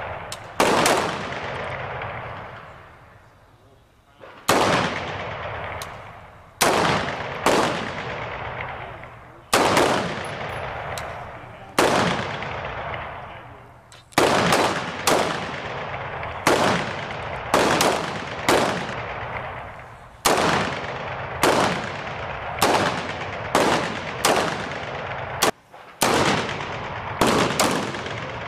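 M16 rifles (5.56 mm) fired on a range, single shots rather than bursts, each sharp crack followed by a ringing echo tail. The shots come a few seconds apart at first, then about one a second from the middle on.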